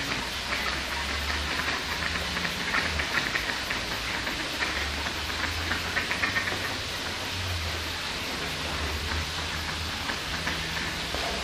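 Steady watery hiss, with a low rumble under it. Clusters of small splashy ticks come in a couple of seconds in and again around six seconds.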